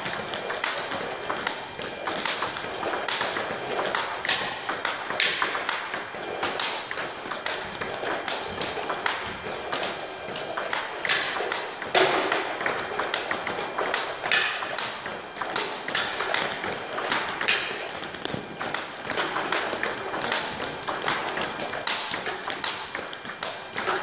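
Table tennis ball struck with a rubber-faced racket and bouncing on the table in a continuous topspin-against-topspin forehand rally: a steady, quick rhythm of sharp taps and pings.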